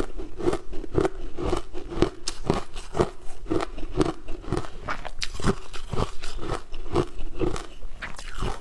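Close-miked chewing of a frozen shaved-ice dessert: crisp, regular crunches about two a second as the ice is bitten and ground between the teeth.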